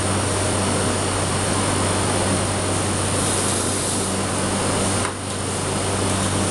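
Gas-heated cotton candy machine running with a steady mechanical hum as its head spins out floss, dipping briefly about five seconds in.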